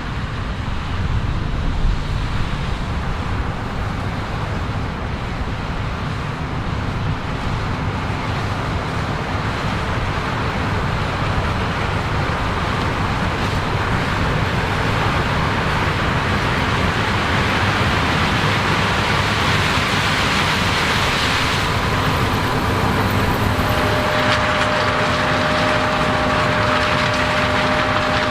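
Heavy diesel farm machinery running steadily and slowly growing louder. A steady mechanical whine joins in near the end.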